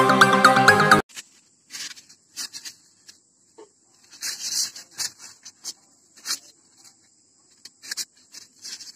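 Electronic intro music that cuts off about a second in, followed by polystyrene foam blocks being handled: short, irregular rubbing and scraping scuffs of foam against foam and against a paper-covered table.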